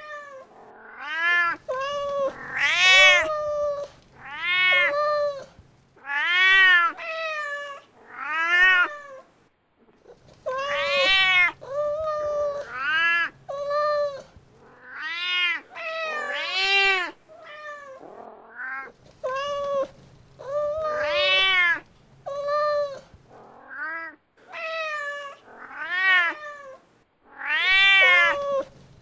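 A mother cat calling for her kitten with repeated meows, roughly one a second, each rising then falling in pitch, with a short pause about nine seconds in.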